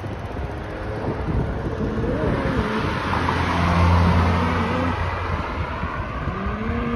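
Wind rushing over the microphone while riding a bicycle down a street, with a car driving past. The car's engine hum is loudest about four seconds in.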